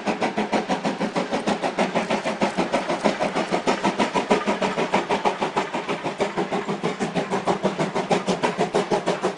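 Exhaust of a JNR Class C11 steam tank locomotive chuffing in a rapid, steady beat as it works its train of passenger coaches up a grade, the coaches rolling past.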